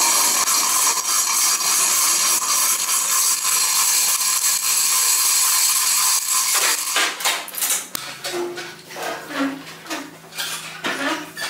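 Steel chain of a manual chain hoist rattling fast and continuously as the hand chain is pulled to lower a tractor. From about eight seconds in it slows to separate metallic clinks, about two a second.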